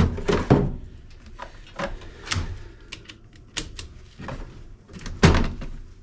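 Irregular knocks and clunks of things being handled or moved about, perhaps a door, with the loudest at the very start and another about five seconds in.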